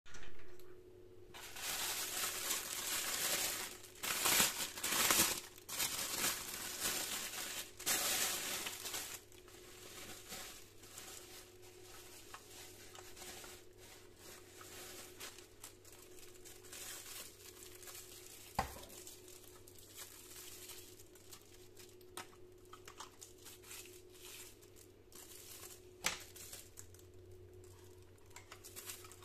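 Clear plastic bag and bubble wrap crinkling as they are opened and pulled off a telescopic reach grabber, loudest over the first nine seconds or so. After that, quieter rustling and handling, with a couple of sharp clicks.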